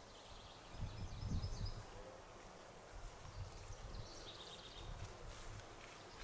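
Faint outdoor ambience: a bird chirping in short high notes about a second in and again around four seconds, over a low rumble that swells about a second in.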